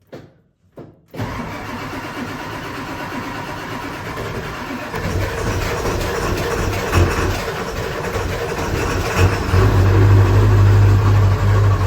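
Ford 7.3 Power Stroke turbo-diesel V8 cold start: a few faint clicks, then the engine catches about a second in and runs. It gets louder with a strong low drone about halfway through and again near the end.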